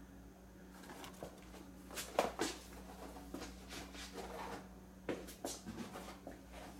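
Rustling and light clicks of carded action-figure blister packs, cardboard and plastic, being handled and set down, a few sharper clicks among them. A faint steady low hum runs underneath.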